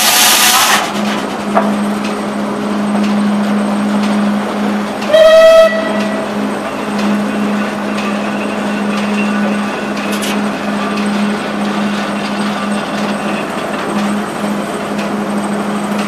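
An 1890s steam-powered sawmill's machinery running with a steady hum, the circular saw's cut ending within the first second. About five seconds in comes a single short, loud steam-whistle blast.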